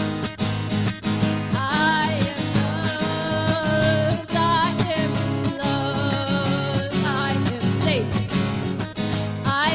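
Strummed acoustic guitar with a voice singing long, wavering melody notes that come in about two seconds in.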